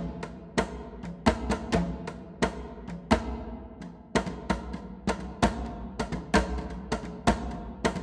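Sampled hand percussion from Splash Sound's Epic Percussion Kontakt library being played: sharp drum hits in an uneven rhythm, about two or three a second, each with a short ringing tone.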